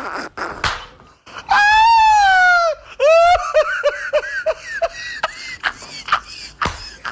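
A woman's high-pitched shriek lasting just over a second, followed by a run of short ha-ha laughter, her reaction to a failed attempt at curling her hair.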